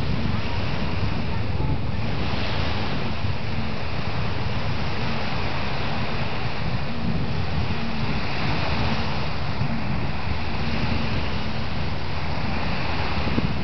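Steady wind buffeting the microphone, with small lake waves washing in underneath.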